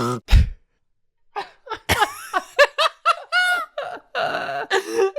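A brief low thud, a second of silence, then several people laughing in short repeated bursts.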